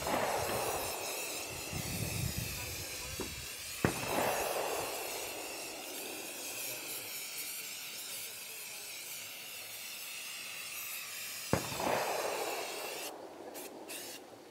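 Aerosol spray-paint can hissing steadily as white paint is sprayed on, stopping about a second and a half before the end. Three sharp cracks with fading tails stand out: one at the very start, one about four seconds in, and one near twelve seconds.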